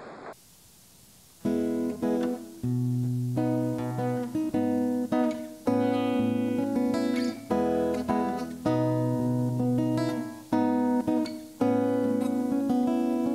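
Acoustic guitar playing a slow chord progression with picked bass notes, a new chord every second or so. A steady hiss cuts off at the very start, and the guitar comes in about a second and a half in.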